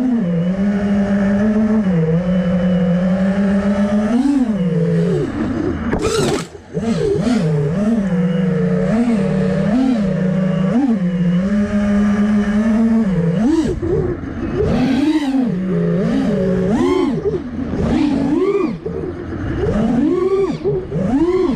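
FPV freestyle quadcopter's brushless motors and propellers whining. The pitch holds steady at first, drops out briefly about six seconds in, then rises and falls again and again with quick throttle punches.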